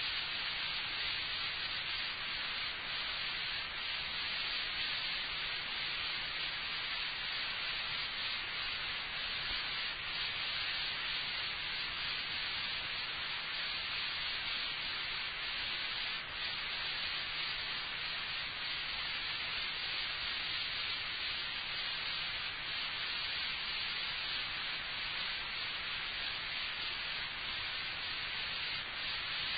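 Steady hiss with a faint low hum and no speech: the background noise of an old lecture recording.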